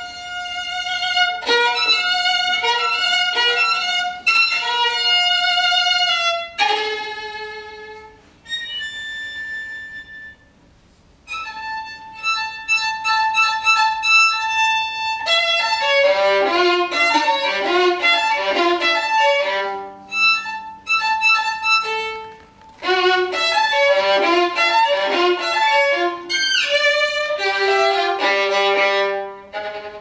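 Solo violin playing a contemporary classical piece in separate phrases. A soft, high held passage comes about eight to ten seconds in, followed by a brief near-silent pause. Quick runs of notes follow from about sixteen seconds and again from about twenty-three seconds.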